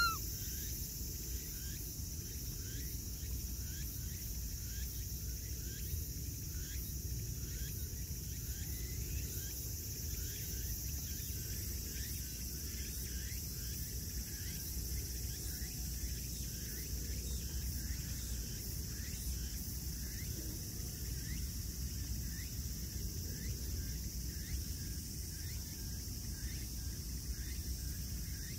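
Steady outdoor insect chorus, with a soft chirp repeating about twice a second and a thin high continuous buzz that stops partway through, over a low background rumble.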